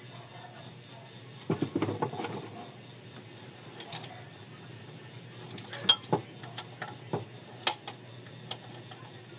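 Metal tools clinking and tapping against engine parts during a valve clearance check, with the engine stopped. Scattered sharp clicks, with a short burst of clatter about one and a half seconds in.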